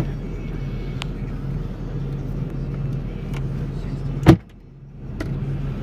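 Steady low mechanical hum of a running motor, with a few light clicks and one sharp knock about four seconds in as a cooler full of bottled water is opened and a bottle handled.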